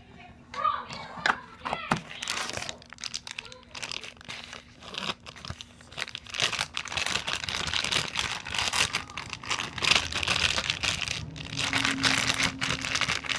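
Dense, rapid crinkling and crackling as slime is squeezed and handled, starting about two seconds in, after a few brief voice sounds.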